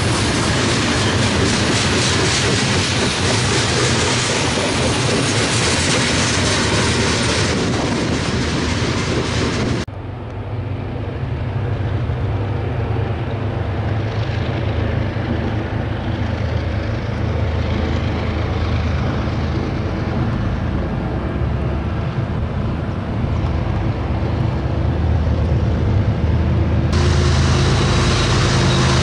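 Freight train rolling past: a steady noise of railcars on the rails. It cuts off abruptly about ten seconds in to a quieter, lower steady rumble, and the loud rolling noise returns just as abruptly near the end.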